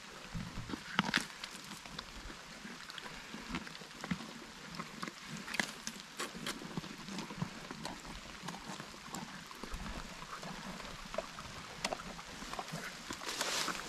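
Two donkeys chewing and crunching watermelon, with irregular wet crunches and clicks. A louder rush of noise comes in near the end.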